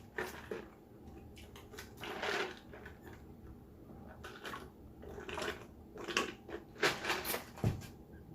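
Intermittent crunching and rustling close to the microphone, with scattered clicks, from eating and handling food and packaging at the table. The longest stretch of crunching comes about two seconds in, and a short low thud comes near the end.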